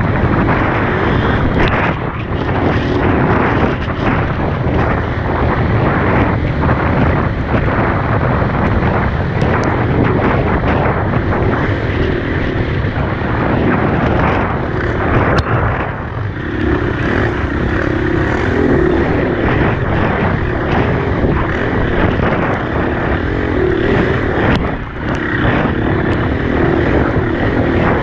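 Dirt bike engine running steadily under way, its note rising and falling a little through the ride, mixed with rushing noise on the microphone.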